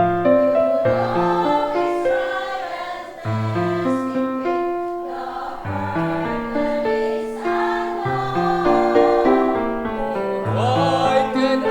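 A church choir singing a hymn in several voice parts, holding sustained chords over a moving bass line.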